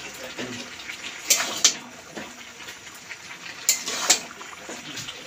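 Metal spatula scraping and knocking against a kadai as chicken and potatoes are stirred and turned, with four sharp scrapes in two pairs, about a second in and near four seconds in. Under it a steady sizzle of the meat cooking in the water it has released, the kosha stage of the curry.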